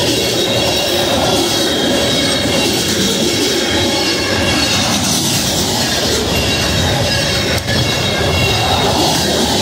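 Empty coal cars of a freight train rolling past close by: a steady loud rumble and rattle of steel wheels on rail, with a thin high wheel squeal over it.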